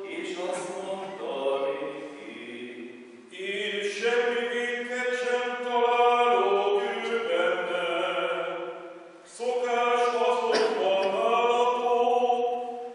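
Unaccompanied male chanting of the sung Passion in Hungarian: long held notes moving in steps, with two short breaks for breath.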